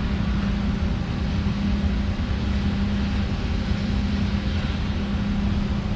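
A steady low machine drone with a constant hum, unbroken throughout.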